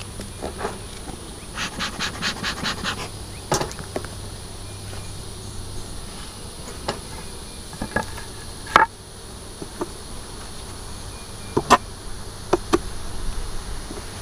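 Honeybees buzzing at an opened wooden beehive, with wooden knocks and clicks as the cover boards are shifted and frames are worked with a hive tool. A quick run of about eight ticks comes near the start, and a sharp knock about nine seconds in is the loudest sound.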